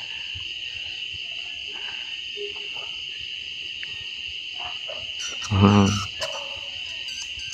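Steady night insect chorus, a constant high-pitched trill, with a brief low human voice about five and a half seconds in.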